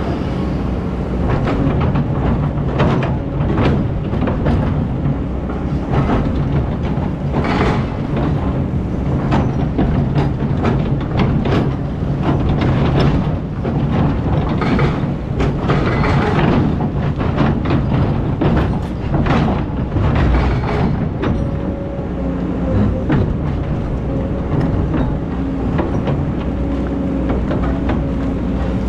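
Excavator's diesel engine running steadily under load, with many short knocks and scrapes throughout.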